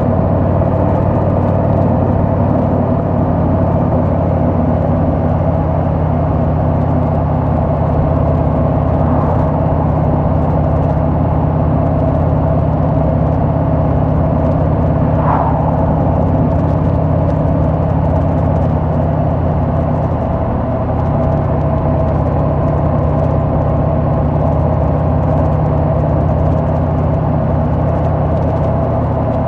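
Harley-Davidson Sport Glide's Milwaukee-Eight 107 V-twin running steadily while riding along at a constant pace, its note shifting slightly about two-thirds of the way through.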